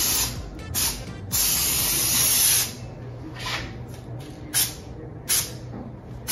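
Aerosol can of heavy-duty spray adhesive hissing in a series of sprays: two short sprays, a long spray of over a second, then three brief puffs about a second apart.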